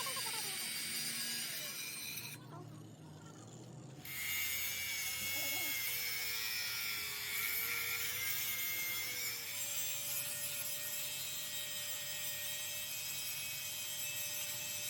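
Metalworking tool noise during a truck axle repair: a steady scraping hiss with a faint steady hum, dropping away briefly about two seconds in and resuming about four seconds in.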